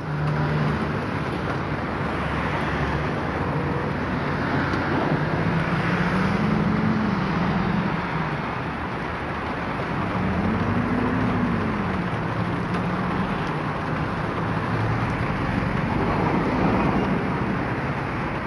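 Heavy rain pouring onto pavement and a flooded road, a dense steady hiss, with cars driving through the wet street. Engine hum rises and falls as vehicles pass about a third of the way in and again past the middle.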